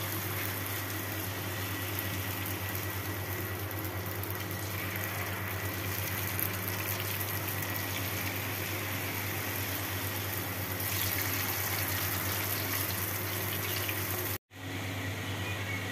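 Hot oil sizzling steadily as batter-coated pappadams deep-fry in a pan, with a steady low hum underneath. The sound cuts out for a moment near the end.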